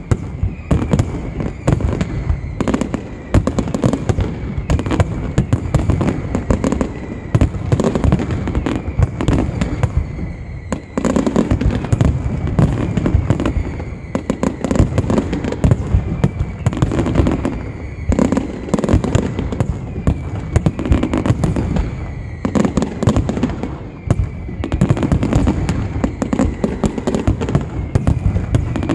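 Aerial fireworks display: a loud, dense, unbroken barrage of shell bursts and crackling bangs, many per second.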